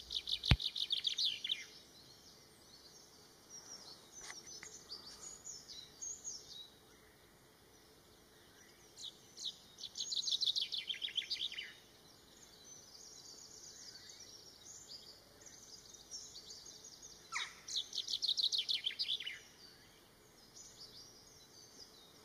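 African chaffinch singing: three song phrases about eight seconds apart, each a quick run of notes falling in pitch, with fainter bird calls between them. A single sharp click sounds just after the start.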